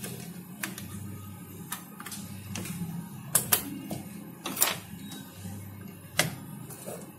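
Sharp plastic clicks and knocks as a RAM module is pressed into a motherboard's DIMM slot and its latch snaps shut, then a POST diagnostic card is pushed into the PCIe slot. About eight clicks, the loudest around halfway and another near the end, over a steady low hum.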